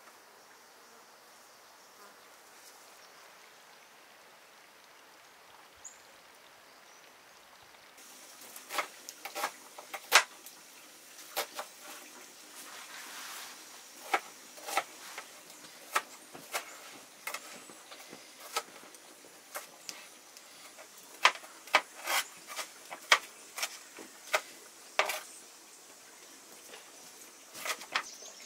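Faint steady hiss, then from about eight seconds in, irregular sharp clicks and knocks, sometimes several close together.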